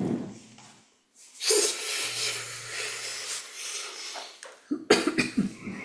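A long, heavy breath out close to the microphone, lasting about three seconds. A few short clicks follow near the end.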